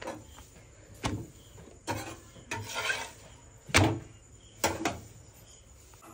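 Kitchen clatter while cooking rotis: a series of sharp knocks and a short scrape of a spatula and utensils against an iron tawa and a gas stove, about six in all, the loudest near four seconds in.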